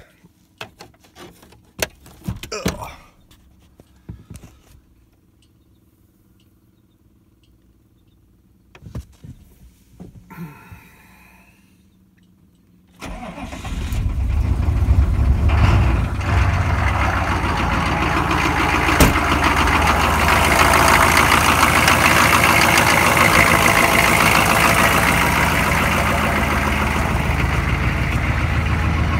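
A few scattered clicks, then a pickup truck's engine starting about two-thirds of the way in, building up over a couple of seconds and settling into a steady run.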